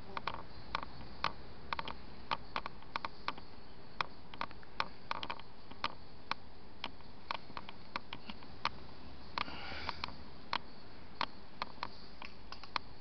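Irregular sharp clicks, about two a second, over a faint steady hum, with a short hiss about ten seconds in.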